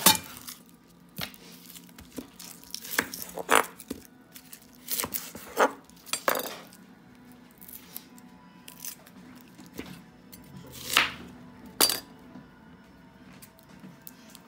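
A knife cuts through an onion onto a wooden cutting board, a loud chop at the start, followed by scattered knocks and the crisp crackle of dry onion skin being peeled off by hand.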